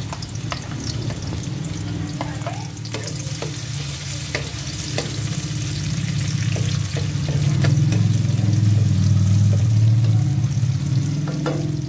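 Minced garlic and chopped onion sautéing in oil in a metal wok, sizzling while a wooden spatula stirs and scrapes against the pan with scattered ticks and taps. A steady low hum runs underneath, and the whole grows louder about halfway through.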